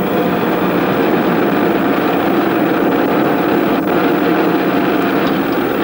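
A 5-horsepower direct-current electric motor running steadily, powered through a controlled rectifier (static switching) rather than a contactor.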